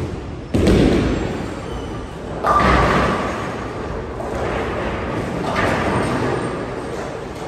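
Bowling alley impacts: three sudden crashes, about half a second, two and a half and five and a half seconds in, each trailing off in a long rumble, as bowling balls strike pins in a large hall.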